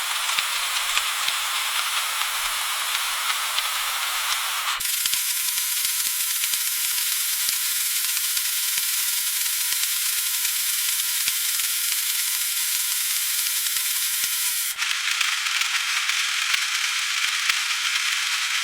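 Food frying in hot oil: a steady sizzle dotted with many small crackles and pops. The sound changes abruptly twice, about five seconds in and about fifteen seconds in, the middle stretch thinner and higher.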